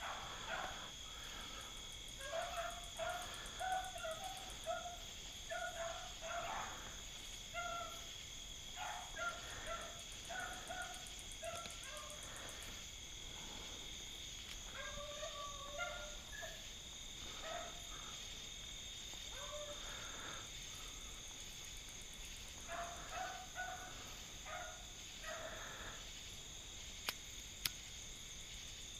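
Beagles baying in the distance as they run a rabbit: short yelping notes in scattered bursts, over a steady chorus of crickets. Two faint clicks near the end.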